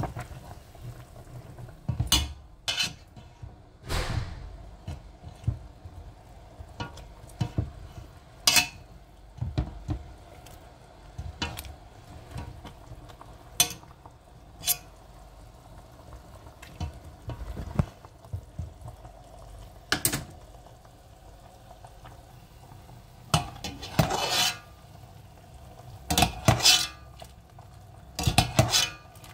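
Metal ladle and utensils knocking and scraping against a stainless steel pot of simmering chicken broth. Single sharp knocks come every few seconds, then denser clattering and scraping in the last few seconds.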